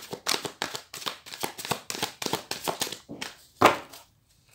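A deck of tarot cards being shuffled by hand: a quick run of card slaps, about four or five a second, ending with one louder slap about three and a half seconds in, after which it stops.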